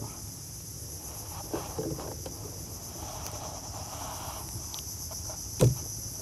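Steady high-pitched drone of insects. About three seconds in, a soft hiss lasting about a second and a half as line runs off a spinning reel during a cast, and one sharp knock near the end.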